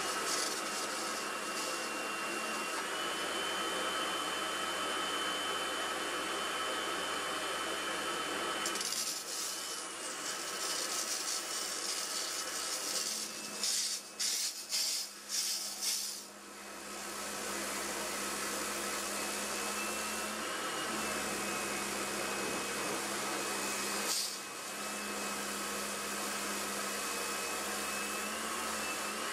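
Kärcher pressure washer running with a steady hum and a thin high whine, its jet spraying onto a plastic sun lounger. Around halfway through, the sound breaks off in several quick stutters, then carries on steadily.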